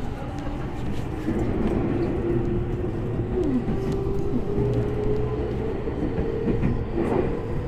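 Tokyu 5050 series electric train running, heard from inside the car: a steady low rumble of wheels on rail, with the traction motor whine rising steadily in pitch as the train gathers speed. A few rail-joint clicks come near the end.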